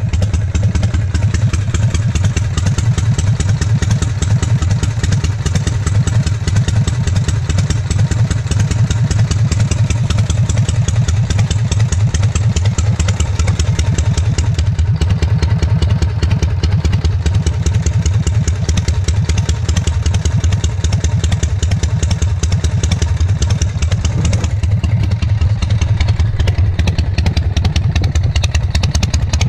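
Harley-Davidson Shovelhead V-twin motorcycle engine idling, a steady rapid beat of firing pulses with no change in speed.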